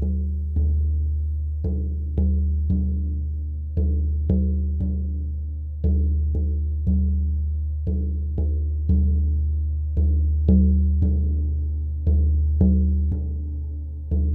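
Shamanic drum beaten in a steady repeating pattern: three deep, ringing beats about half a second apart, then a short pause, over and over.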